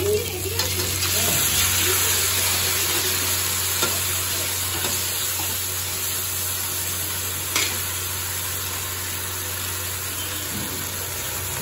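Onions and capsicum sizzling in a hot iron wok, the sizzle jumping up sharply about half a second in as sauce is poured in, then frying steadily while being stirred with a metal spatula. The spatula clinks against the wok twice.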